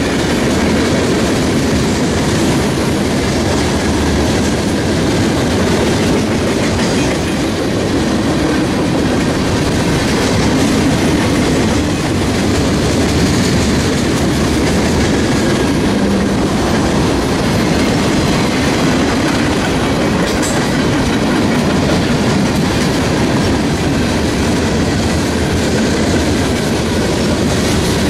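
Freight cars of a CSX mixed freight train rolling past close by: a steady rumble and clatter of steel wheels on the rails as boxcars, covered hoppers and lumber-loaded centerbeam flatcars go by.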